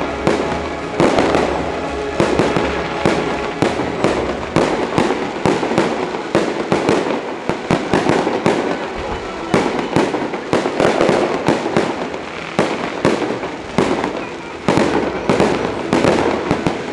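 Aerial firework shells bursting overhead, bang after bang in quick, irregular succession, several a second, over the continuous rumble of the display.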